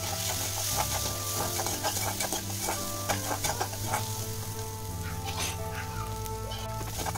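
Shallots sizzling in hot oil in a hammered metal kadai, stirred with a steel slotted spoon that scrapes and clicks against the pan.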